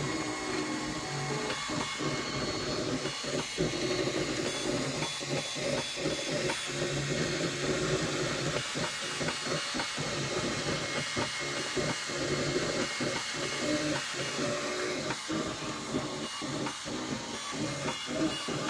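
Ultimaker 3D printer at work: a steady fan hiss with the stepper motors whining in shifting tones as the print head moves, broken by many brief pauses in the motor noise.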